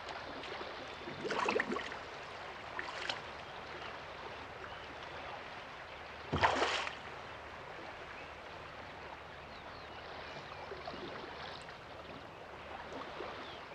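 River water running steadily, with a few short splashes; the loudest comes about halfway through.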